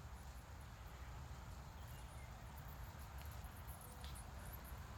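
Faint outdoor evening ambience: a steady low rumble with scattered faint high-pitched ticks and chirps.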